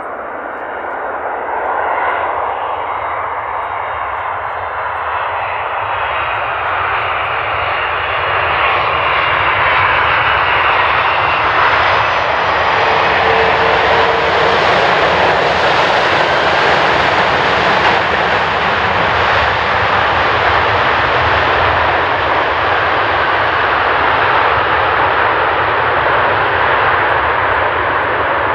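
Boeing 767-300ER airliner's jet engines on landing rollout: a steady jet engine noise that builds over the first several seconds as the aircraft comes closer, is loudest around the middle, and stays strong to the end.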